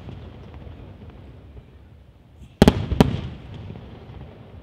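Aerial firework shells bursting: two loud bangs close together a little past halfway, each trailing off in a rolling rumble, over the fading rumble of earlier bursts.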